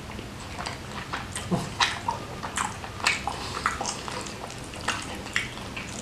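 Close-miked mouth sounds of a person chewing a mouthful of spicy stir-fried beef: irregular wet smacks and clicks of chewing and lip noise.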